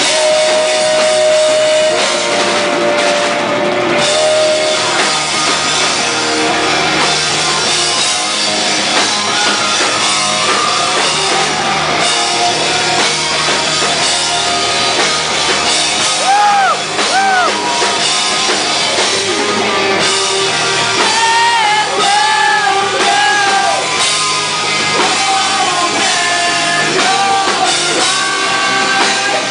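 Rock band playing live: distorted electric guitars, bass and drum kit, with a sung lead vocal and notes that bend in pitch.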